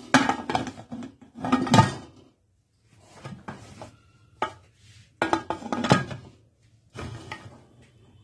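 Aluminium pressure cooker lid being fitted and closed: a series of metal clanks and scrapes in separate bursts, with a sharp click about four and a half seconds in.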